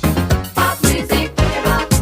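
Background music with a steady, upbeat funk-like beat.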